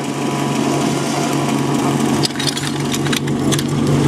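Portable fire-pump engine running steadily, with a scatter of sharp clicks and knocks from a little over two seconds in as the suction hoses are handled and coupled.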